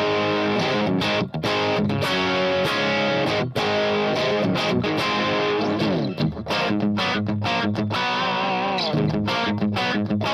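Brian Eastwood BillyBird electric guitar with Mojo Goldfoil humbuckers, played through a Kemper amp profile: a continuous run of sustained single notes and chords. About six seconds in there is a downward slide, and near the end held notes waver with vibrato.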